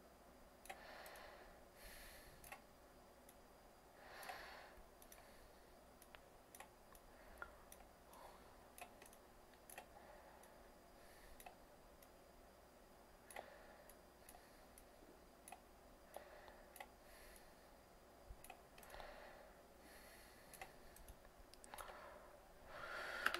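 Faint, scattered computer mouse clicks over quiet room tone, with a few soft rushes of noise and a louder one near the end.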